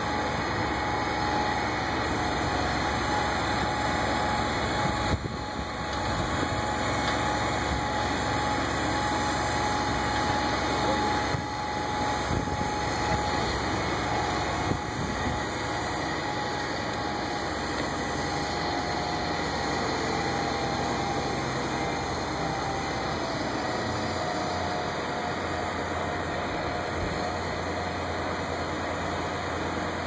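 A boom crane truck's engine running steadily while the crane hoists a packaged rooftop air-conditioning unit, with a faint steady whine running through it.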